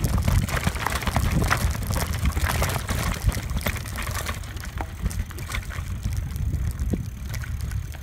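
Bulls mountain bike riding over a loose dirt and gravel track: wind buffeting the microphone under a dense crackle of tyres crunching gravel and the bike rattling over bumps. The crunching and rattling thin out about halfway through as the surface turns to smoother packed dirt.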